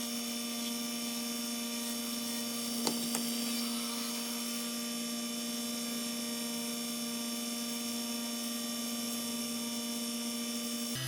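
Small electric motor of a woodworking tool running at a steady speed, with one short click about three seconds in.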